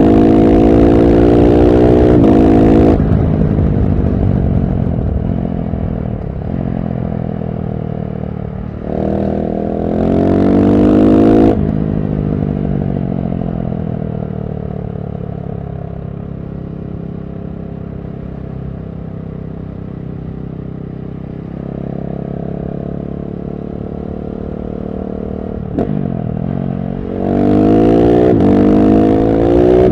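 KTM SMC-R 690's single-cylinder engine through a LeoVince One Evo slip-on exhaust, accelerating with its pitch climbing, then easing off the throttle at about three seconds. It pulls again briefly near the ten-second mark, settles into a long stretch of low, falling revs, and accelerates hard again near the end.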